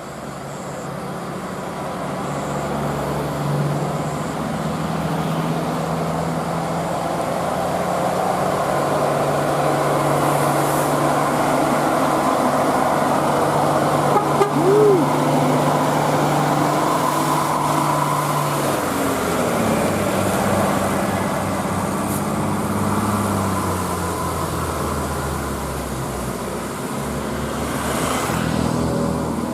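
Tour bus going by with its engine running and its horns sounding, the sound swelling as it nears and easing as it moves away, with a drop in pitch about two-thirds of the way through.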